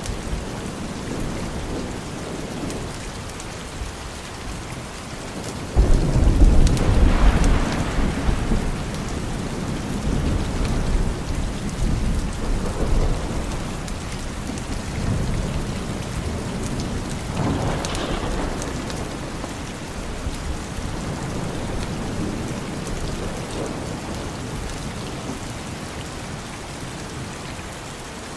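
Steady rain with thunder: a sudden loud thunderclap about six seconds in that rumbles on for several seconds, and a second, softer roll of thunder about two-thirds of the way through.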